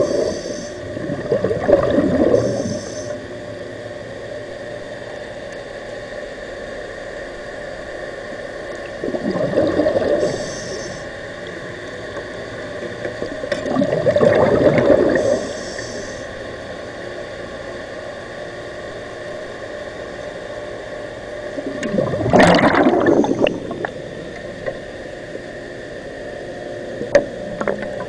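Underwater, a diver's exhaled breath bubbling out of the breathing apparatus in four bursts several seconds apart, over a steady hum.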